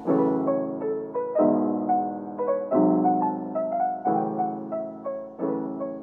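Background piano music: a sustained chord struck about every second and a half, with a light melody of single notes above it.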